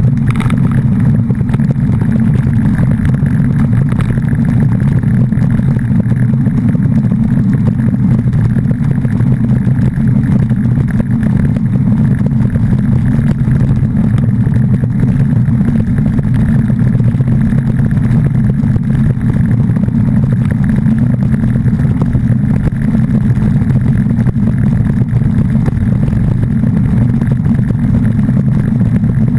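Steady low rumble of a vehicle on the move, engine and road noise running evenly without change.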